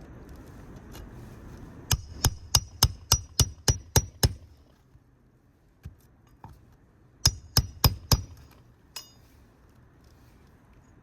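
Hammer driving roofing nails through an asphalt shingle: a quick run of about nine ringing strikes, roughly three a second, then after a pause a second run of four.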